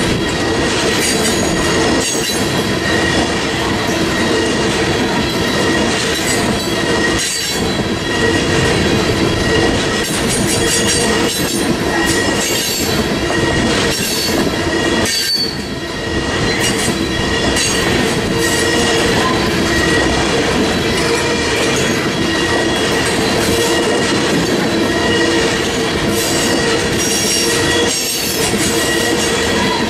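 Freight train tank cars rolling past at close range: continuous wheel-on-rail noise with a steady high-pitched wheel squeal, and occasional clicks as wheels pass over rail joints.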